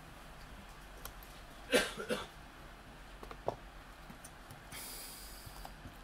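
Quiet room tone with one short breathy sound, like a breath or throat noise, about two seconds in. A couple of faint clicks and a brief soft hiss follow later.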